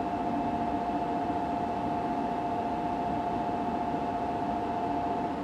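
Steady two-tone electronic buzzer sounding for about five seconds and then cutting off, over a constant station hum. It fits a Shinkansen platform departure signal as a stopping train gets ready to leave.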